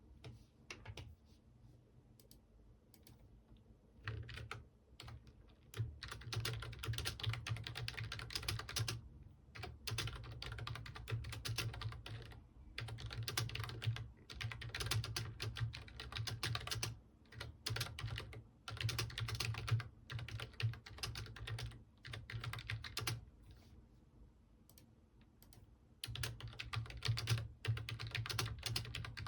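Typing on a computer keyboard: a few scattered key clicks, then fast runs of typing from about four seconds in, broken by short pauses, with a longer lull before the typing picks up again near the end.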